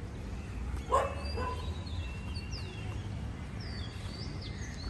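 A dog barks once about a second in, followed by birds chirping with high gliding calls, over a steady low background rumble.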